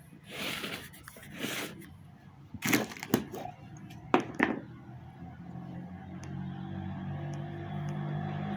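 Small metal parts handled on a workbench: some rustling, then a few sharp knocks and clicks. From about halfway through, a low engine hum builds and grows steadily louder.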